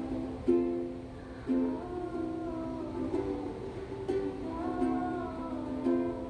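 Ukulele strummed slowly, a chord struck about once a second and left to ring.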